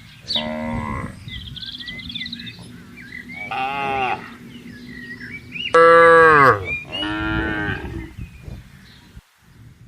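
Cattle mooing: four drawn-out calls, each falling in pitch, the loudest about six seconds in.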